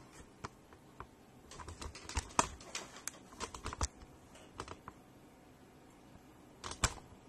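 Faint, irregular light clicks and taps of handling, with a sharper pair of clicks near the end.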